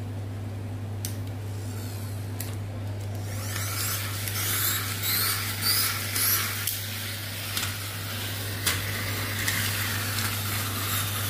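Two Mechanimals toy battle cars running across a tile floor, their pull-back spring motors whirring with a wavering pitch from about three and a half seconds in. A sharp clack comes near the end as the cars crash together.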